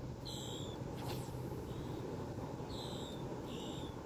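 A bird calling repeatedly: short, high calls that fall in pitch, coming about once a second and closer together toward the end, over a steady low background rumble.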